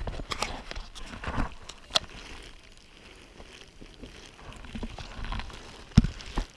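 Camera handling noise as the camera is swung around and repositioned: rustling of rain-jacket fabric, several clicks and knocks, and a sharp knock about six seconds in.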